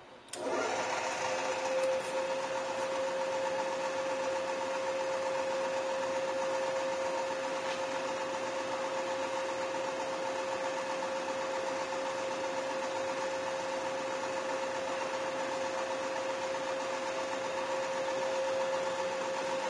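Turn Pro power feed drill press switched on about a third of a second in, then its motor and spindle drive run at a steady speed with a steady whine.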